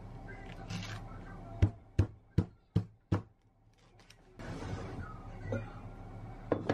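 Chef's knife chopping through an ear of corn in its husk and knocking on the wooden cutting board: five sharp knocks in quick succession, about three a second. Husk rustling follows, and there is a quick double knock near the end.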